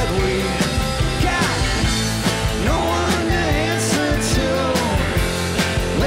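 Rock band playing live: drum kit with cymbals, electric guitar and keyboard, with a melody line that bends and slides in pitch.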